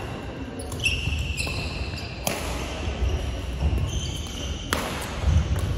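Badminton play: shoes squeak on a wooden court floor several times, and a racket strikes the shuttlecock sharply twice, about two seconds in and near the end, over a low steady hall rumble.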